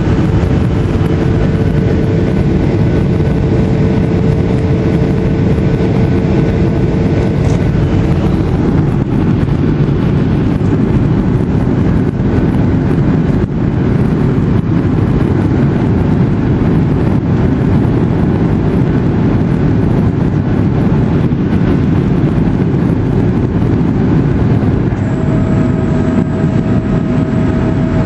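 Steady cabin roar inside a Boeing 737-800 on approach to land: the CFM56 engines and the airflow over the fuselage. A faint hum fades out about nine seconds in, and a higher steady whine joins near the end.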